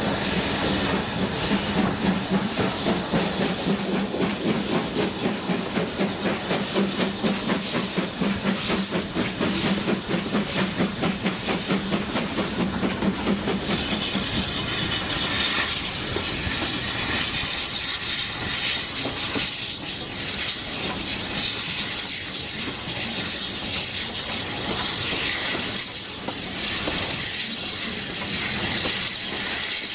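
Steam locomotive hauling the train, heard from a carriage, with rapid chuffing from its exhaust. About halfway through the chuffing eases and a steady hiss of steam and the clatter of wheels on rail take over.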